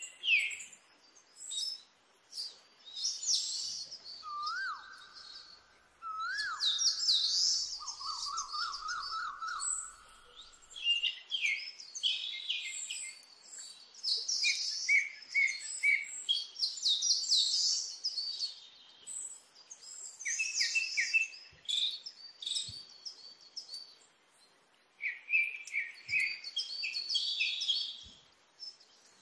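Several birds chirping and singing, a dense run of quick high calls, with a lower whistled call twice and a short trill a few seconds in.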